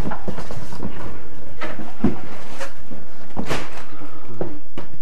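A handful of irregular knocks and clatters of debris and loose objects being stepped on or shifted in a cluttered room.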